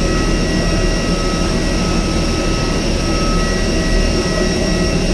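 Steady rushing hum of a parked airliner at its cabin door during boarding, with several thin, steady high whines over it, as from the auxiliary power unit and cabin air-conditioning running.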